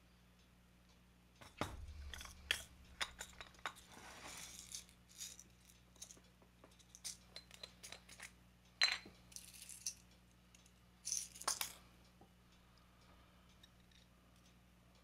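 Small metal parts and a screwdriver being handled and set down on a cutting mat: a string of light clicks, chinks and small clatters, with a soft thud about a second and a half in and the sharpest clicks about nine and eleven seconds in.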